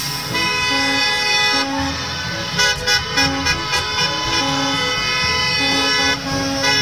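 A sustained horn-like sound effect: a steady, buzzy tone with a low note that shifts in steps beneath it. A few short taps come about three seconds in.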